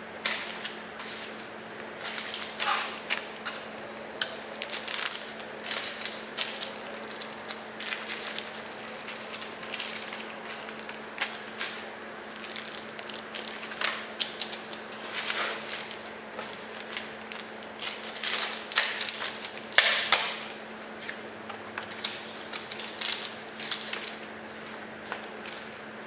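Irregular clicks, taps and short rustles of plastic and cardboard packaging and small accessories being handled, over a steady low hum.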